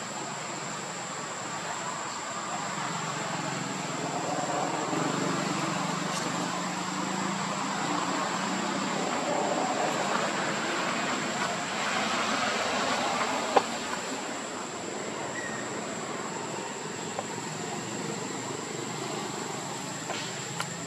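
Steady outdoor background noise, a rushing haze that swells a little in the middle, with a constant high-pitched whine throughout and one sharp click about two-thirds of the way through.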